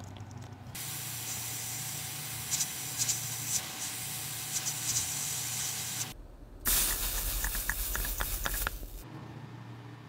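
Flux and solder hissing and crackling as a hot soldering iron drags desoldering braid across a phone motherboard's chip pads, in two stretches with a short break between them; the second stretch has sharper crackles.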